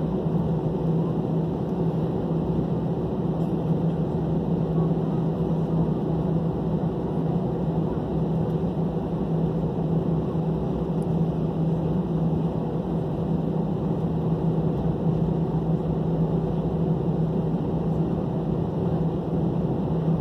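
Steady cabin noise of an Airbus A320 taxiing, heard from a window seat: the engines running at taxi power give an even drone with a low hum, unchanging throughout.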